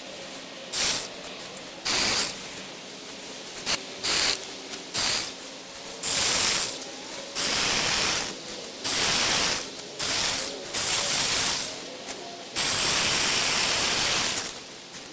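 Cordless 6-inch mini electric chainsaw running in repeated short bursts as its trigger is squeezed and released, its chain whirring through small limbs. The bursts start and stop abruptly, most under a second, with one longer run of about two seconds near the end.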